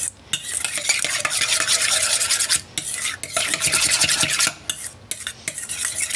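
A whisk beating a mayonnaise and Dijon dressing in a stainless steel mixing bowl, with rapid, even scraping strokes against the metal that stop briefly twice.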